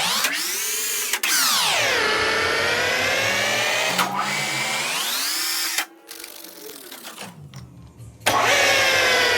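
Electric power tool motor whining, its pitch sweeping up and down several times as the speed changes, with a few abrupt breaks and a quieter stretch in the middle.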